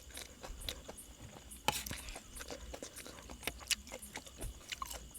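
Close-up eating sounds: scattered soft clicks and smacks of chewing a spicy Thai salad, with a sharper click a couple of seconds in. A faint steady high chirring of field crickets runs underneath.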